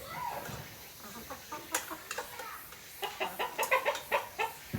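Chickens clucking, with a quick run of short clucks in the last couple of seconds and a single sharp tap a little before the middle.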